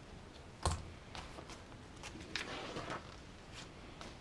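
Light clicks and taps of small kit parts and tools handled on a workbench, with one sharper knock less than a second in. A short rustle of the paper instruction manual comes near the middle.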